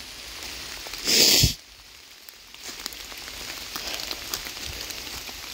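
Heavy rain pattering steadily, with many small raindrop ticks. About a second in, a loud half-second burst of noise cuts across it, followed by a brief dip in the rain sound.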